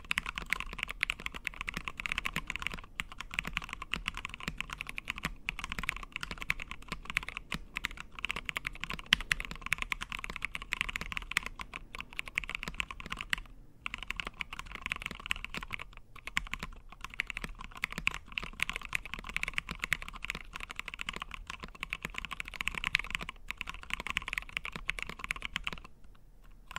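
Continuous typing on a 65% mechanical keyboard with lubed linear switches (retooled Cherry MX Blacks with Gateron Yellow springs, lubed with Tribosys 3204) in a 5 mm acrylic sandwich-mount case, with MT3 Godspeed PBT keycaps. A dense run of keystrokes with short pauses every few seconds, stopping just before the end.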